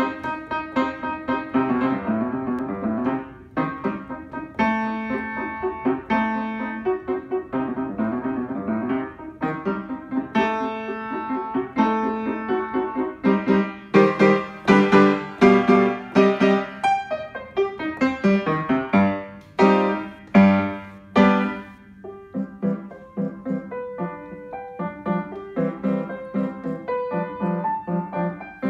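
Upright acoustic piano playing a ballade. The music starts suddenly with quick repeated notes, and a run of loud accented chords comes midway through.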